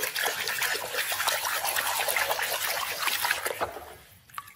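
Water splashing and sloshing as a hand scrubs a muddy toy fire truck under water in a plastic basin, a busy churning of small splashes that dies away about four seconds in.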